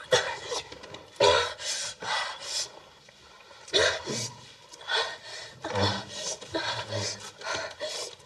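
A young woman panting and moaning in distress, in irregular ragged gasps, with fingernails scratching and rubbing at a wall.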